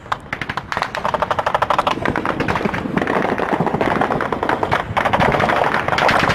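Sustained automatic gunfire: rapid shots in long bursts, with brief breaks about three and five seconds in.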